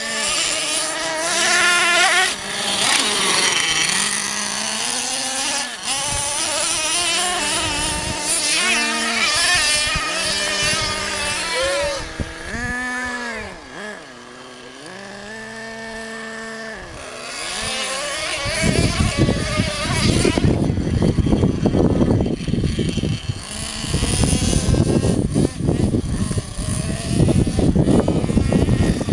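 Nitro engine of a Thunder Tiger MTA4 S50 Sledge Hammer RC monster truck running and revving, its pitch repeatedly rising and falling. From about 18 seconds in the sound turns louder and rougher, with a noisy rumble over the engine.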